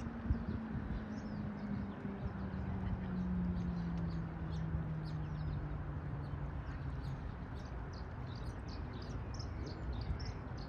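Riverside ambience: a steady hiss of rippling water, with frequent short high bird chirps. A low hum slowly drops in pitch between about one and seven seconds in.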